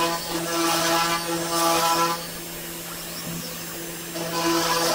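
Genmitsu 4040 Pro CNC router running a cutting program, its end mill routing 3 mm plywood over a steady motor whine. The cutting noise comes and goes: louder for about the first two seconds, quieter for a while, then louder again from about four seconds in.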